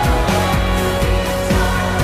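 Background music: a pop track with a steady beat.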